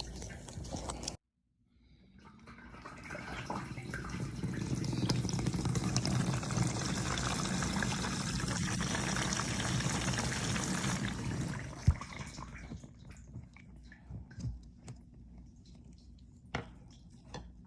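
Water pouring into the tub of an LG dishwasher as it fills at the start of a wash cycle. It builds up about two seconds in, runs steadily, and dies away about twelve seconds in, leaving a few faint clicks.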